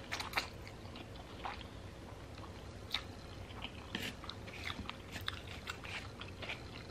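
A person chewing food close to the microphone, with scattered irregular crunches and wet mouth clicks.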